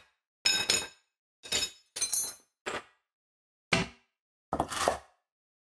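About six short metallic clinks and clanks, irregularly spaced, the first with a brief ringing tone: a car wheel and its wheel bolts being handled and fitted back onto the rear hub.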